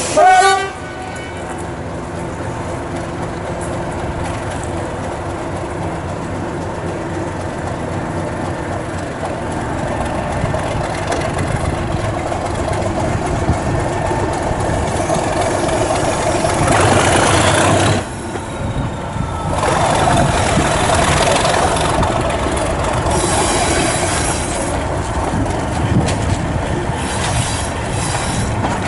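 A short diesel train horn blast at the very start, then a diesel-hauled heritage train pulling away, heard from an open carriage window. Engine noise and wheels clattering over the rails grow louder as it gets under way.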